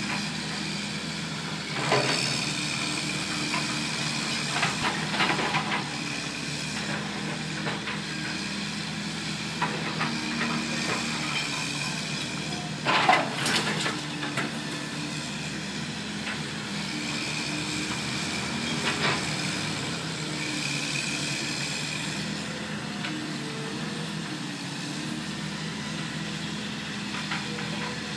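Caterpillar 324D excavator running steadily while its demolition grapple tears into a brick and block wall, with a higher whine that comes and goes as the arm works. Masonry and debris crash down several times, loudest about halfway through.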